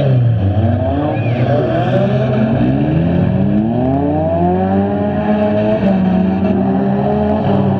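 Several stock front-wheel-drive derby cars' engines running and revving together, their pitches rising and falling as the cars speed up and slow in the mud.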